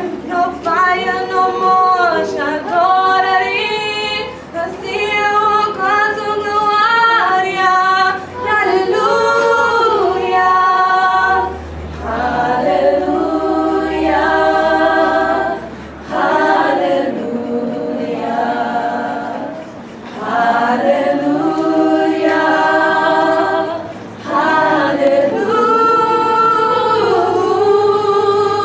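Women's voices singing a cappella, a church song in long held phrases with short breaks between them.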